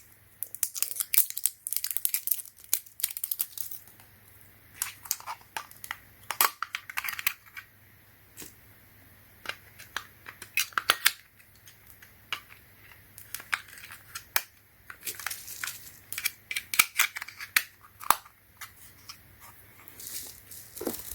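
Plastic packaging crinkling and rustling, with scattered small clicks from a remote control and its AAA batteries being unwrapped and handled.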